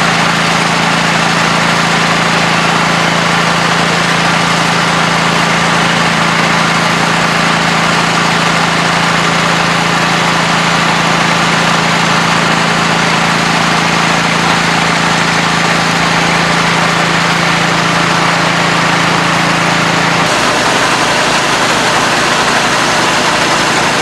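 Steady farm machinery: a semi truck's diesel engine idling close by and a grain auger running as grain pours into the truck's hopper trailer. A strong steady hum drops away about twenty seconds in.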